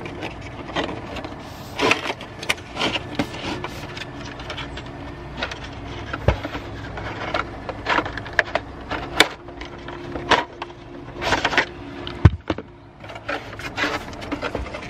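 A tripod stand being taken out of its cardboard box and handled: packaging rustling and scraping with scattered clicks and knocks, and two sharper thumps about six and twelve seconds in. A faint steady hum runs underneath.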